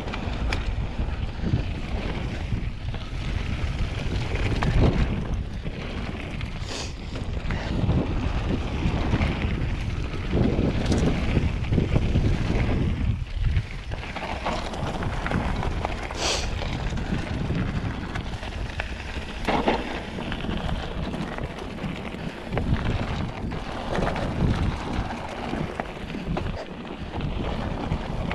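Wind buffeting the microphone of a mountain biker's action camera, over the rumble and crunch of knobbly tyres rolling fast down a loose dirt-and-gravel trail. A few short, sharp high-pitched sounds cut through.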